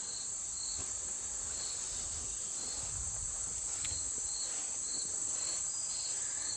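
Insects calling: a steady high-pitched buzz, with a separate short chirp repeating regularly about twice a second.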